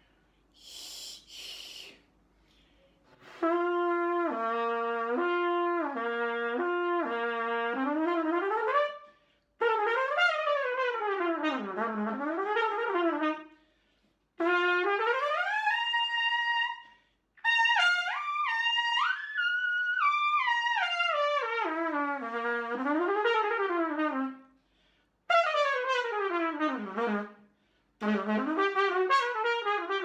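Trumpet played with the 'hi' (хи) syllable, with the tongue high and the mouth opening small, giving the light, compact sound suited to fast technique and the upper register. After a short hiss of breath about a second in, it plays several quick phrases of scale and arpeggio runs up and down, with short breaks between them.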